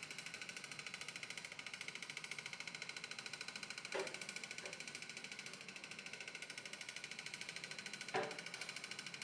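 Small electric motor, fed by Peltier thermoelectric devices, running steadily with a fast, even flutter as it spins an underwater propeller. There are two short knocks, about four and eight seconds in.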